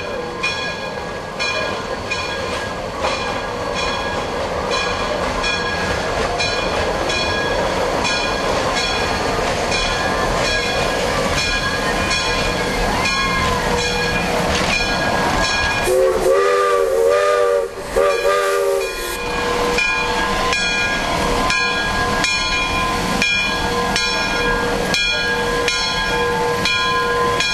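Shay geared steam locomotive 'Dixiana' No. 1 running, its exhaust beating in a steady rhythm of chuffs over a constant hiss of steam. About two-thirds of the way through it gives two blasts on its steam whistle, the first longer than the second.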